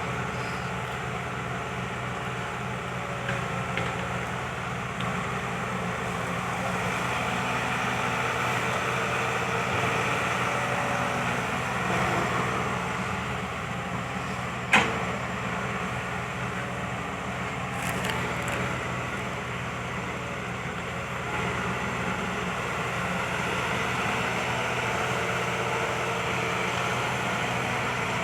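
Kobelco SK120 Mark III excavator's diesel engine running steadily at work, with one sharp knock about fifteen seconds in.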